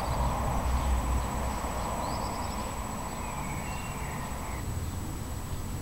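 Outdoor ambience: a few short bird chirps over a steady low rumble and a hiss that fades out about four and a half seconds in.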